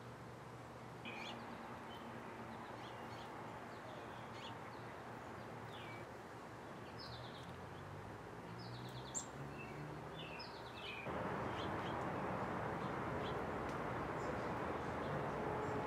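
Small songbirds chirping: scattered short, high call notes, some in quick runs of two or three, over a steady outdoor background hiss that gets louder about eleven seconds in.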